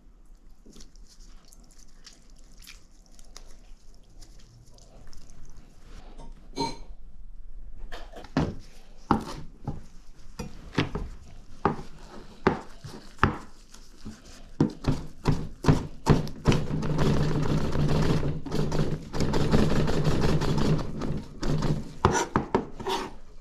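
A run of irregular knocks and thunks that grows denser after about eight seconds, joined in the last several seconds by a louder steady noise with a low hum.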